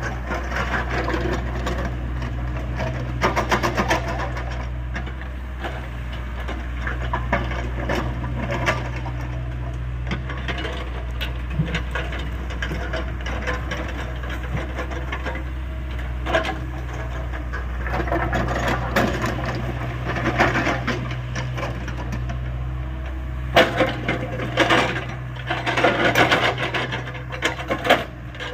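Hydraulic rock breaker on a Hyundai 85A excavator hammering rock in rapid, rattling strikes that come in heavier spells, over the steady low hum of the excavator's diesel engine. The engine's hum drops near the end.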